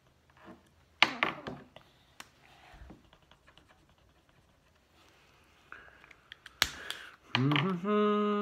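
A few sharp clicks and taps from felt-tip markers being handled and used on coloring pages, the loudest about a second in and again near the end. Then a person starts humming a steady tune.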